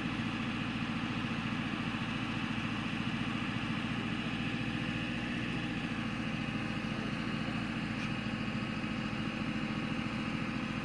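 A truck engine idling steadily, a low, even rumble that does not change.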